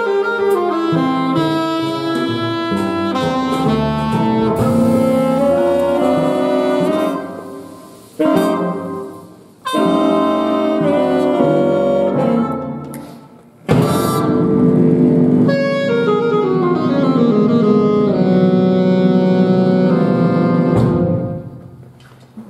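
Jazz big band playing, with saxophones and brass over the rhythm section and a saxophone out front. The band stops short several times in the first half, then holds a long final chord that dies away near the end.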